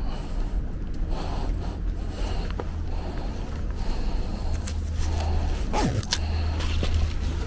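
Black plastic garbage bag rustling and crinkling as it is opened and its mouth pulled back, with a few sharp crackles, over a steady low rumble.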